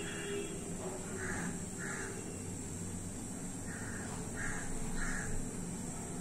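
A crow cawing: about six short caws in runs, over a faint steady background.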